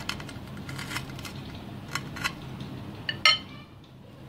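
A table knife cutting through a crisp deep-fried potato cutlet on a ceramic plate: scattered sharp clicks and scrapes against the crust and plate. About three seconds in comes one loud, ringing clink of the knife on the plate.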